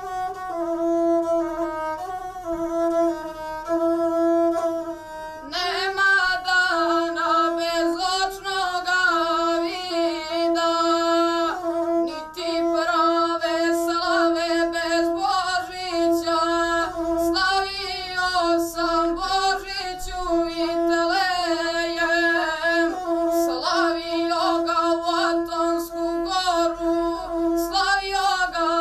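Gusle, the single-string bowed folk fiddle, played steadily, its melody keeping to a narrow range and returning again and again to one held note. About five seconds in, a boy's voice joins, singing along with it in phrases that break off every few seconds.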